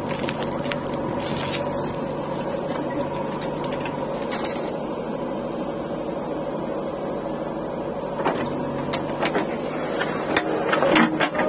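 JCB 4DX backhoe loader's diesel engine running steadily under load as the boom swings and dumps its bucket. In the last few seconds there are sharper knocks and scraping as the bucket digs back into the soil.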